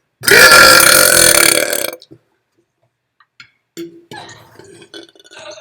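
One long, loud burp lasting nearly two seconds, holding a steady pitch before trailing off. After it there are only faint scattered sounds.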